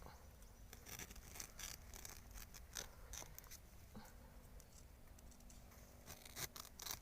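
Faint, irregular scraping and crackling: a small hand spade scraping and digging in soil and leaf litter around a wild bamboo shoot.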